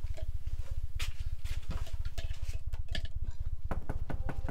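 A rapid, even low mechanical throb with the light clicks and clatter of plates, cups and cutlery being set down on a table, the clicks coming more often near the end.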